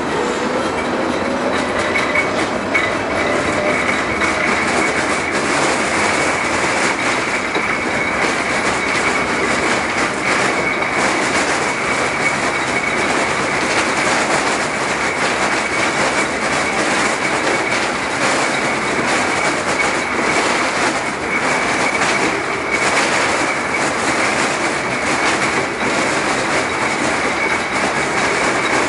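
LM-68M tram running on its track: the traction motor's whine rises in pitch over the first few seconds as the tram gathers speed. A steady high wheel squeal and the clack of the wheels over rail joints continue throughout.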